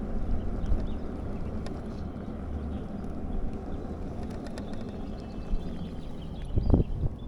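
Low wind rumble buffeting the microphone, with faint short bird chirps above it and a dull thump near the end.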